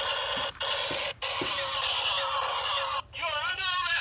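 Toy police monster jeep's battery sound module playing electronic siren effects: a harsh, noisy jumble broken by a few very short gaps, then about three seconds in a siren wailing up and down.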